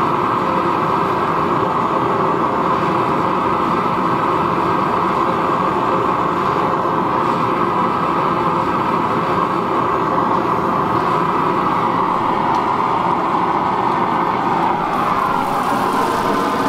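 Gas forge burner running with a steady rushing noise while a knife blade heats to critical temperature for hardening. Near the end the red-hot blade goes into the quench tank and hisses.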